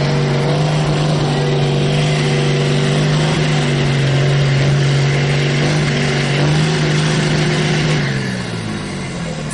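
Diesel engine of a second-generation Dodge Ram pickup held at steady high revs under full load, pulling a weight-transfer sled. About eight seconds in the revs fall away as the engine comes off load at the end of the pull.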